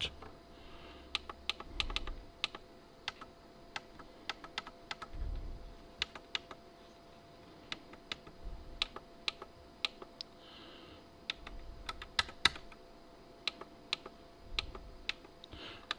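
Light clicks of the Dahua NKB1000 network keyboard's keypad buttons being pressed one after another to type in a password, irregularly spaced, sometimes several in quick succession.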